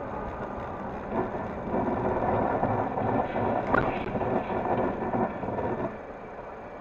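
Road and engine noise inside a car driving on a snow-covered road, growing louder and rougher from about a second in until near the end, with scattered knocks and one sharp click near the middle.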